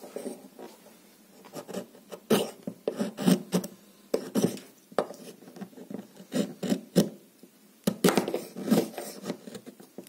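Folding pocket knife blade carving a block of wood: a dozen or more short, irregular scraping strokes as shavings are cut, with a few sharper ticks.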